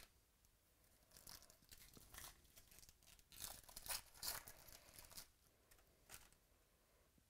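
Trading-card pack wrapper being torn open and crinkled by hand: a run of short tearing and crinkling noises from about one to five seconds in, with a single click at the start and another near the end.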